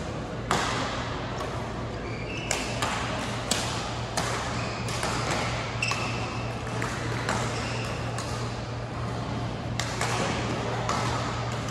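Badminton hall ambience between rallies: scattered sharp racket-on-shuttlecock hits and a few short shoe squeaks from neighbouring courts, over a steady low hum.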